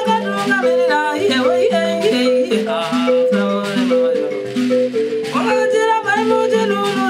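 Mbira dzavadzimu, a Shona thumb piano with metal keys played inside a gourd resonator, plucking a steady, repeating interlocking pattern. A woman sings over it in phrases, near the start and again from about five seconds in.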